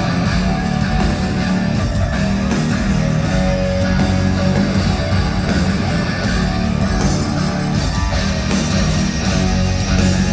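Loud live hard-rock band playing, with heavy distorted electric guitars to the fore over bass and drums.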